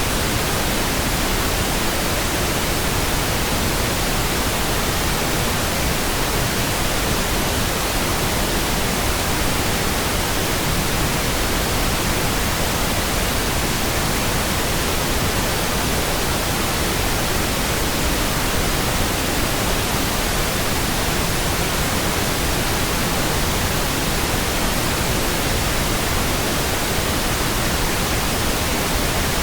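Steady pink noise: an even, unchanging hiss spread across all pitches, with no tones or sudden sounds.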